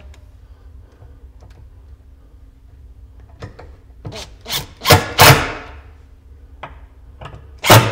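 Makita 18V cordless impact driver driving machine screws through a cabinet door into a bar pull, in a few short, loud bursts just past halfway and again at the end, with quiet handling of the handle and door before them.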